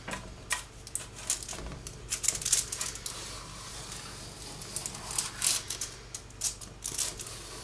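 Knife blade scoring lines into setting butterscotch in a foil-lined tray: irregular sharp, scratchy clicks and scrapes, in clusters, as the blade is drawn through the candy.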